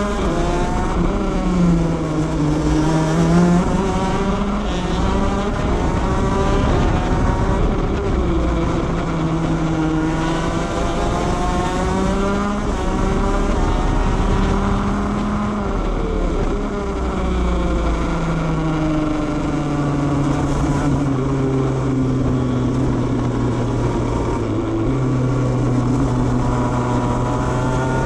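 Two-stroke shifter kart engine heard onboard at racing speed, its pitch repeatedly climbing as it revs up through the gears and dropping back on braking and downshifts, with long stretches held at high revs.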